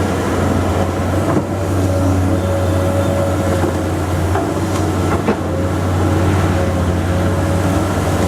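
Excavator's diesel engine running steadily, with a steady whine above the engine hum and a few short sharp knocks, about five spread through it.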